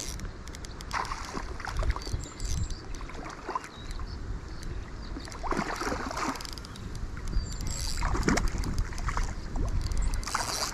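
Wind buffeting the microphone: a steady low rumble with several gusty rushing bursts, and faint clicks scattered throughout.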